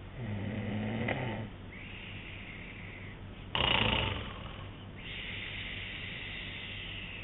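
A man snoring in his sleep: a low, pitched snore on the in-breath lasting about a second near the start, a long breathy out-breath, then a short, loud, sudden burst of breath about halfway through, followed by another long breathy out-breath.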